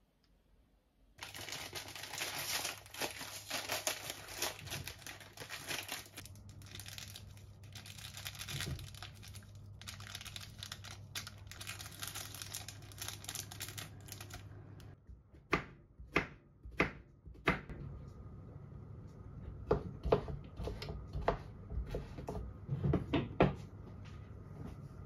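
Plastic food packets crinkling and tearing as a seasoning sachet is opened and squeezed into a pot, a dense crackly rustle over a low hum from about a second in. After about 15 s it gives way to sharp knife strokes on a cutting board as a courgette is cut, four spaced cuts and then a quicker run of them.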